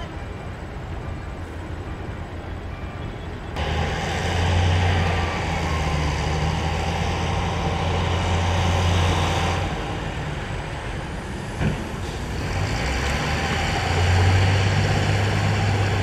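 Heavy earthmoving machinery's diesel engine working: a low engine drone, then about three and a half seconds in a much louder diesel note that rises and falls with load. There is a single sharp knock near the middle.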